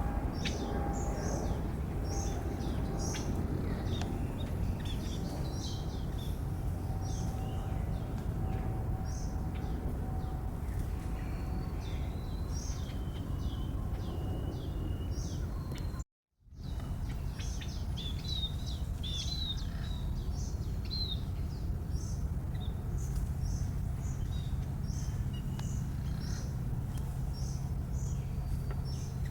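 Many short, high bird chirps and twitters over a steady low background rumble, with a brief complete dropout about halfway through.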